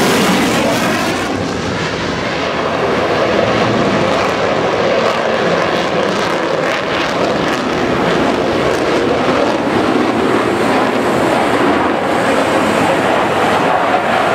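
Gas-turbine engine of an Unlimited hydroplane running, a steady jet-like rush. It is hissier in the first second, then holds even.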